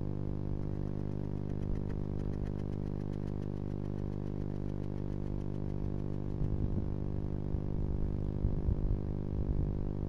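Steady low electrical hum made up of several steady pitches, the usual hum of a nest-box camera's audio. From about six seconds in, soft irregular bumps and rustles come in as the barn owls shift about in the box.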